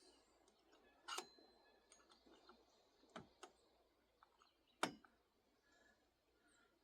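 A few faint, sharp clicks and knocks from hands working on a chainsaw, four clearer ones spread over several seconds, otherwise near silence.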